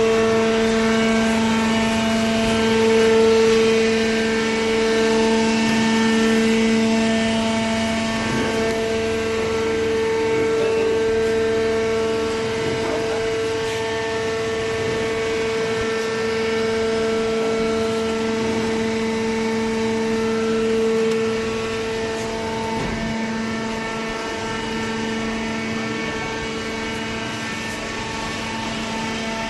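Industrial cardboard shredder and baler machinery running: a steady, loud machine hum with a strong low drone and a stack of overtones, easing off a little in level about two-thirds of the way through.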